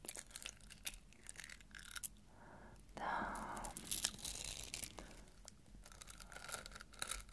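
Close-miked clicking and rustling of a gold bead chain and metal-look pirate medallion handled at the lips, with wet mouth sounds as the chain is licked and bitten. A denser rustle swells about three seconds in.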